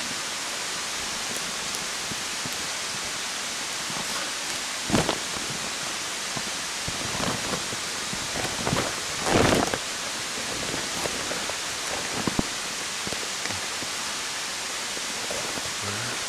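Steady outdoor rushing hiss, with a few rustles and knocks from the camera being handled among conifer branches; the loudest is a second-long rustle about nine seconds in.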